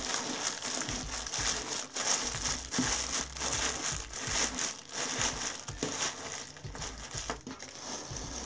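Cellophane candy wrappers on a twine lei crinkling irregularly as hands slide and push the wrapped candies together along the string.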